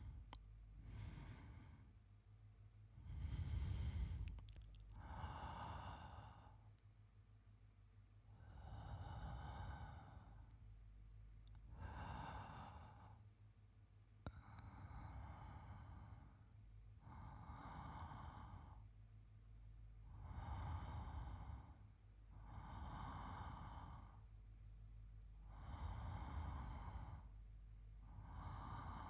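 A man breathing slowly and evenly in his sleep, close to the microphone, with soft breaths about every two and a half to three seconds.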